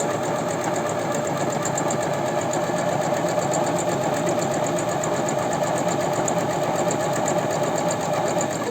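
Janome 509 electric sewing machine running steadily as it sews a test seam with the thread tension set to 6, stopping abruptly at the end.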